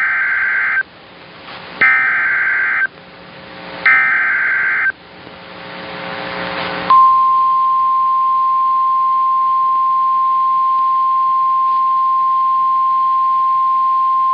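NOAA Weather Radio SAME alert header: three short bursts of warbling digital data tones about two seconds apart, with radio hiss swelling between them. About seven seconds in, the steady 1050 Hz weather radio warning alarm tone starts and holds, signalling that a new warning is about to be read.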